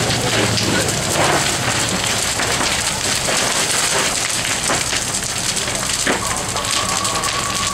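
A house fire burning hard: a loud, dense crackling hiss with many sharp pops. About six seconds in, a steady high tone joins it.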